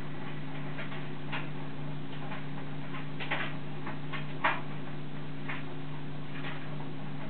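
A cat's claws scratching and raking at a carpet: a few short, irregular scratchy rasps, the loudest about four and a half seconds in. Under them runs a steady low electrical hum.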